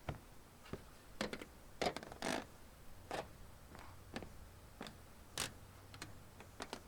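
Footsteps at an uneven walking pace, each step a short, sharp click or scuff, some falling in quick pairs.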